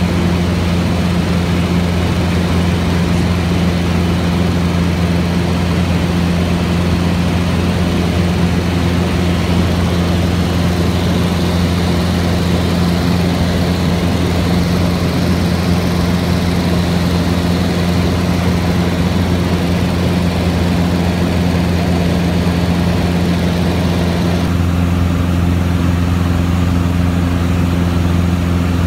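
Light airplane's engine and propeller droning steadily, heard from inside the cabin in flight, with a steady hiss of air over it. Near the end the hiss drops away suddenly and the drone sounds duller.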